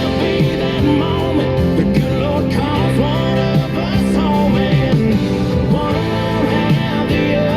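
Background music: a song with singing and guitar over a steady backing.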